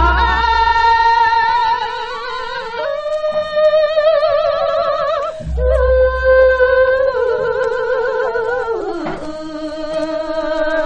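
A female singer sings jireum sijo, an old Victor gramophone record. She holds long notes with a slow, wide vibrato and steps to a new pitch a few times. A low thump sounds at the start and again about five and a half seconds in.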